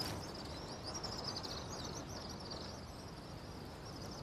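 Outdoor nature ambience: a steady background hiss with continuous high-pitched chirping trills.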